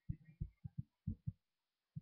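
Irregular dull, low thumps and bumps, several a second: handling noise from the laptop and the paper card being moved close to the built-in microphone.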